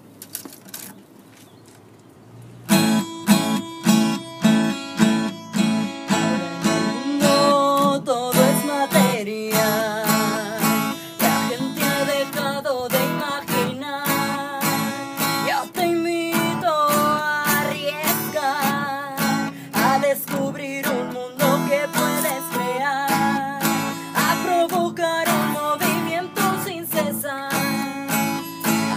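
Acoustic guitar strummed in a steady rhythm, starting about three seconds in after a faint opening. From about eight seconds in, a woman sings over it.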